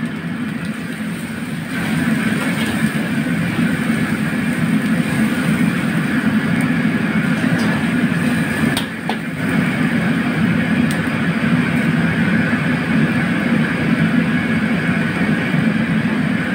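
Steady roar of a commercial wok burner under a carbon-steel wok, with chili and aromatics frying in the oil and a few sharp clicks of the metal ladle against the wok.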